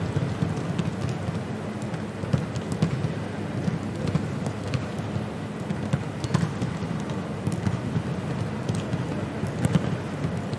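Outdoor stadium ambience: a steady low rumble with scattered short, sharp taps and clicks.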